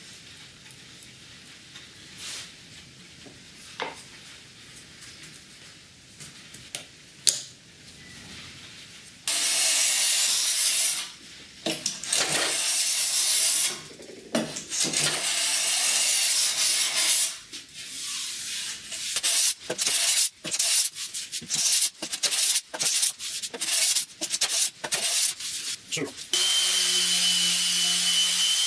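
Faint brushing of glue with a few small clicks. Then a hand plane shaves along a plywood edge, first in three long strokes and then in many short, quick strokes. Near the end a DeWalt random orbital sander with vacuum dust extraction starts and runs steadily with a whine.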